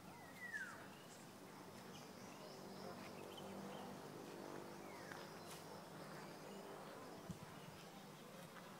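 Faint rural outdoor ambience, with two short falling calls, one about a second in and one about five seconds in, and a single soft knock near the end.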